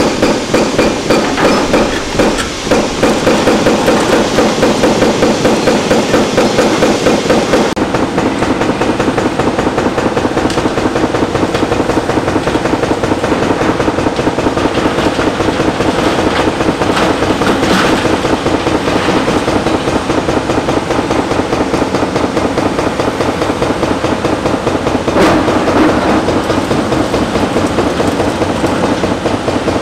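Hydraulic breaker hammer on a Hitachi Zaxis 490 excavator, pounding concrete in a fast, continuous train of blows over the machine running under load. It turns duller about eight seconds in.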